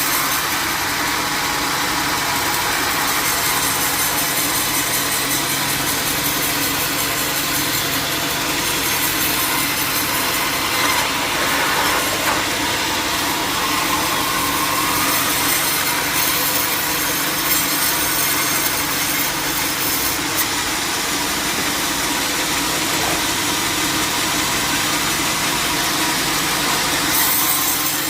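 Sawmill saw cutting steadily through a log, with the mill's engine running underneath.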